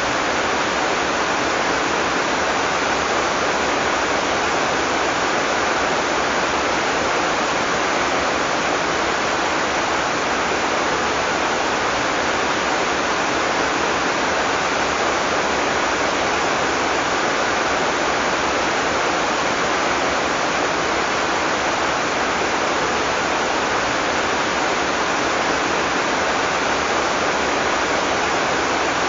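Heavy rain falling steadily, a dense even hiss with no thunder and no single drops standing out.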